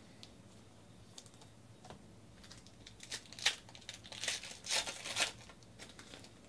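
A foil trading-card pack being torn open, its wrapper crinkling in a cluster of sharp crackles about halfway through, after a few soft clicks.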